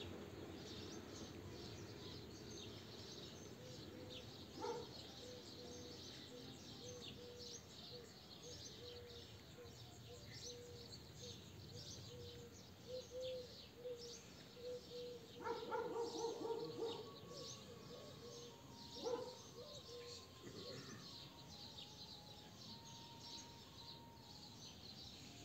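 Small birds chirping faintly and often over a quiet outdoor background, with a faint steady tone and a few soft, brief sounds about midway.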